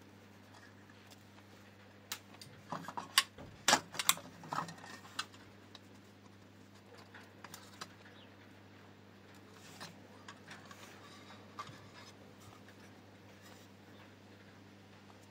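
Sharp clicks and light knocks of small hard parts being handled, bunched together about two to five seconds in, with a few fainter clicks later, over a steady low hum.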